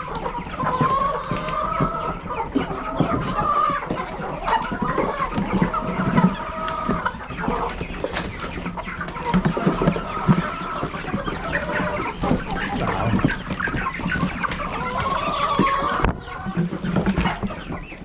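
A large flock of chickens clucking and calling together, many overlapping calls at once, while they crowd in to feed.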